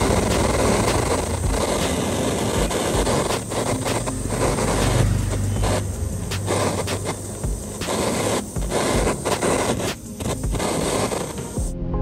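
Jeweller's gas torch flame running with a steady rushing hiss while heating a gold earring hoop to a glow; it stops abruptly near the end.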